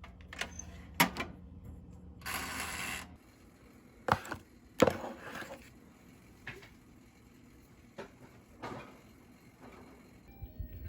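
A handful of sharp, separate knocks and clacks of hard objects, with a brief rushing noise about two seconds in.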